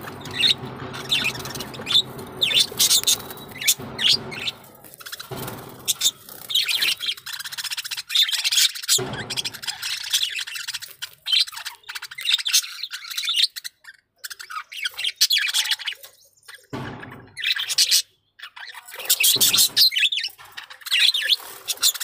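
A flock of budgerigars chirping and chattering: many quick, high chirps overlapping in dense runs, broken by a few short pauses.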